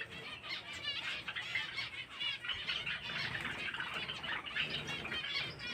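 Many small cage birds chirping together: a continuous chatter of short, high, overlapping chirps.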